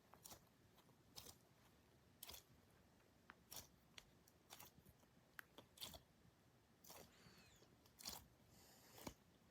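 Faint, scattered crinkles and rustles of squishy foam toys being handled and squeezed, a dozen or so short irregular sounds.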